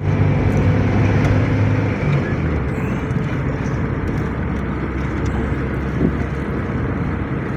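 Vehicle engine running with road noise while driving: a steady low hum, a little louder for the first two seconds, then settling.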